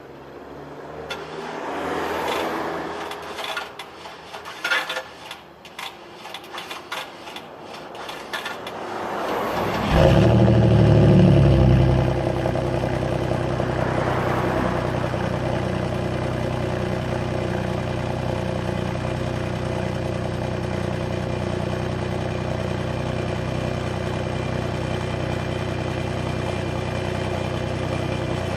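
2000 Pontiac Firebird's 3.8-litre V6 being cranked with difficulty for several seconds, then catching about ten seconds in with a brief loud flare before settling into a steady idle: a hard start.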